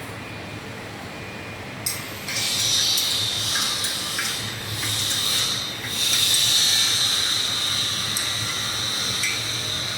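A loud steady hiss starts about two seconds in and dips briefly twice, with a few faint clicks.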